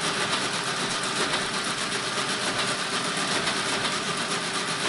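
Friden STW-10 motor-driven mechanical calculator running continuously through a bell (overflow) test: a steady, fast mechanical chatter and whir.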